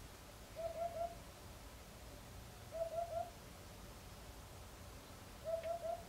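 Eurasian hoopoe singing its soft hooting song: three quick notes together, the phrase given three times about two and a half seconds apart.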